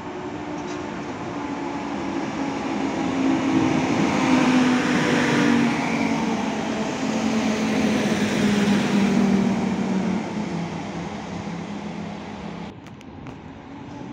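A passenger train hauled by an EP07 electric locomotive rolls past as it slows into a station. Its low hum sinks slowly in pitch, and the rolling noise swells to a peak midway and then fades.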